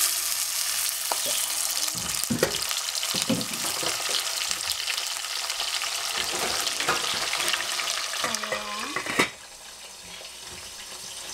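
Cooking oil sizzling as it hits cauliflower florets in a hot stainless steel saucepan: a steady hiss with a few light knocks. About nine seconds in, the stainless lid is set on with a clank, and the sizzling goes on more quietly under it.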